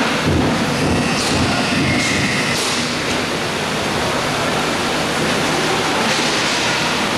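Roller hockey rink ambience: a loud, steady rushing noise with a low hum under it, and several knocks in the first three seconds.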